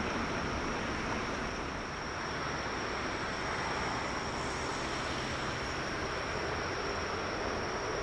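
Boeing 777-300ER's GE90-115B turbofan engines running at low power as the jet rolls slowly on the runway: a steady rushing noise with a thin, steady high whine on top.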